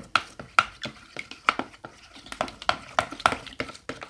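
A utensil stirring a runny mix of white glue and water in a bowl, clinking against the bowl's sides in quick, uneven strokes, about three a second.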